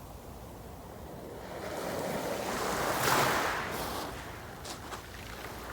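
Sea waves washing onto the shore: one wave swells and breaks loudest about halfway through, then ebbs away with a little crackling wash.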